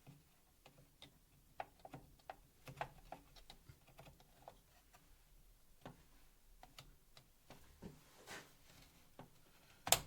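Small irregular clicks and taps of hardware being handled inside an open desktop PC case, with a sharper click near the end.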